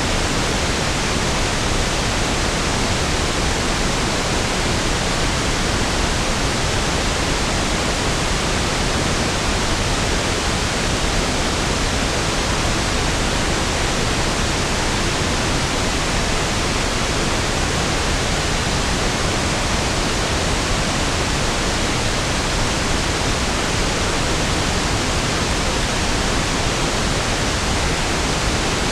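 Steady pink noise (1/f noise): an even, unchanging hiss spread across the whole range, with equal energy per octave, so it sounds smoother and deeper than white noise.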